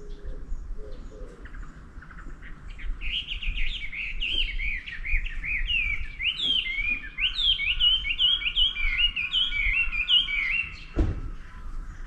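Wild songbirds chirping in a tree: a fast, dense run of short, falling chirps starts about three seconds in and stops shortly before the end. A dull thump follows just after it, over a faint low rumble.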